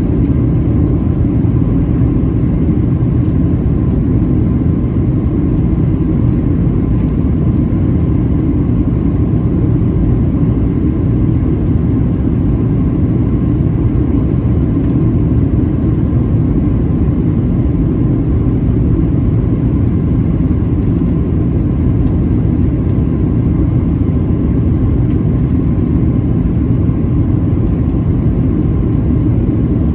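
Steady cabin noise inside a Boeing 737-700 on final approach to landing: the low rumble of its CFM56-7B turbofan engines and the rush of air over the airframe, with a faint steady whine.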